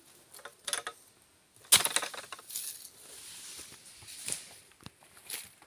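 A few scattered sharp clicks and knocks, the loudest a little under two seconds in, with light rustling between, from handling a steel-bladed harvesting pole among dry fallen oil palm fronds.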